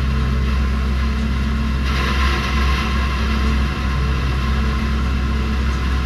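John Deere 9670 STS combine running under load while harvesting wheat: a steady low drone of engine and threshing machinery, with a brief rush of higher noise about two seconds in.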